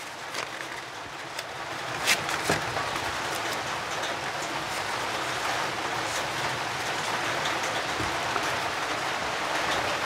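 Steady rain, building over the first few seconds and then holding at an even level, with two sharp clicks about two seconds in.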